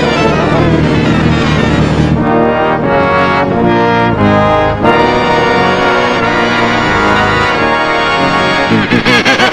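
Orchestral cartoon score led by brass. It opens with falling slides, moves through held chords, and breaks into quick repeated notes near the end.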